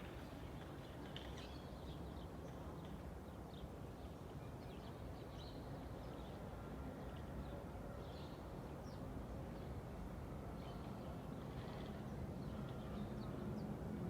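Suburban ambience: a steady low rumble of traffic, with short bird chirps scattered throughout.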